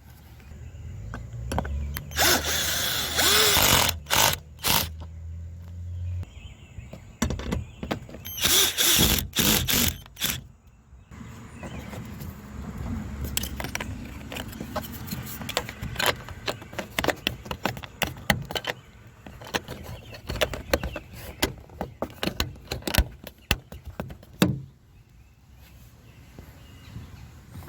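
Screws being driven and plastic car door trim being fitted back on by hand: two harsh bursts of about a second and a half each, about 2 and 8 seconds in, then a long run of quick clicks and knocks.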